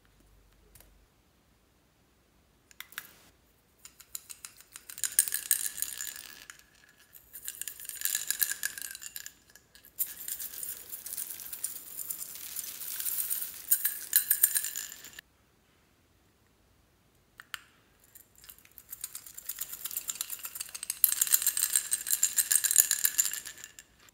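Glitter shaken out of a small plastic shaker bottle onto slime: a fine, high rattle in four spells of a few seconds each, with a few single clicks before the first and in the pause before the last.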